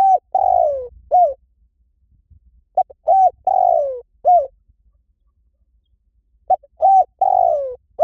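Spotted dove cooing: three repeated phrases about three and a half seconds apart. Each is a short note, a rising-and-falling coo, a longer coo that slides down, then a final coo.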